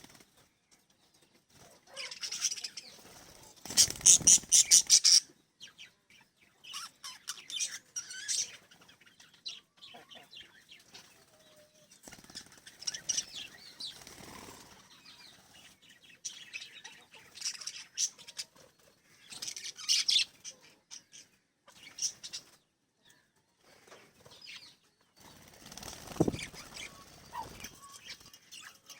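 Small pet parrots chirping and fluttering their wings in short, irregular bursts, the loudest a rapid flurry about four seconds in.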